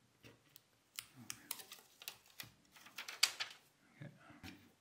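Small irregular clicks and taps of metal tweezers and fingers handling and seating a thin metal shield and flex cable on an iPhone 7 display assembly, busiest in the middle.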